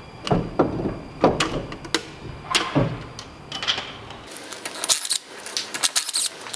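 Irregular metallic clanks and knocks of steel tools and parts against a Dana 44 front differential. After a cut about four seconds in, a quick run of sharp, high metal clinks of bolts and parts on the differential carrier.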